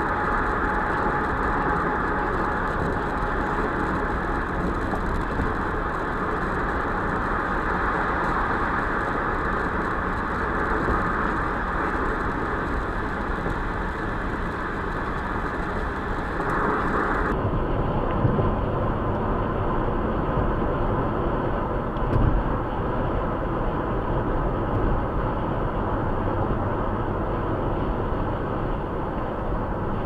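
Steady road noise of a vehicle cruising at freeway speed, tyres and wind running evenly. About 17 seconds in the sound switches abruptly to a duller, deeper rumble, with a couple of short thumps soon after.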